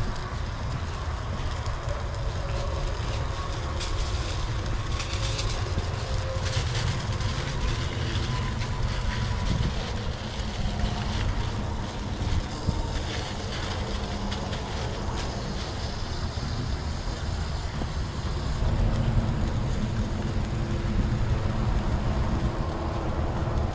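Sheets of aluminum foil crinkling and rustling now and then as they are handled and draped over a chicken. Under them runs a steady low rumble.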